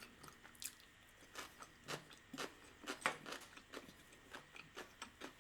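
Faint, irregular chewing of soft risotto, with wet mouth clicks and smacks scattered through.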